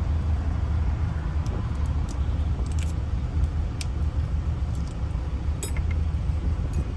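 Steady low rumble of a vehicle, with a scattered handful of light, sharp metallic clicks from small lock parts being handled.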